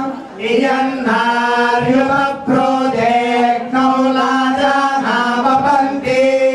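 Male voices chanting in unison, holding long, nearly level notes broken by brief pauses for breath.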